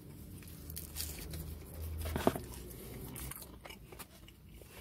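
A person chewing and biting into pepperoni pizza, with scattered small mouth clicks and one louder bite about two seconds in.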